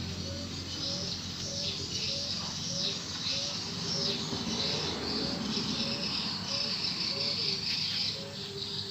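Birds calling and insects chirping, one call repeating a short note at a steady pace, over a steady low hum.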